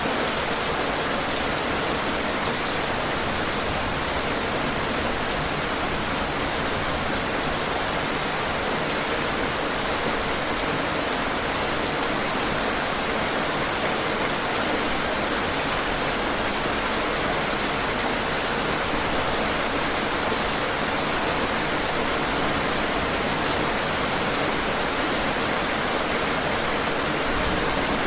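Steady rain falling: an even, unbroken hiss of many drops that neither rises nor falls.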